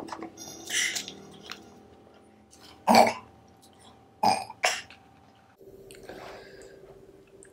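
A person burping after gulping carbonated soda: one loud burp about three seconds in, then two shorter sounds a second later. There is a breathy hiss near the start.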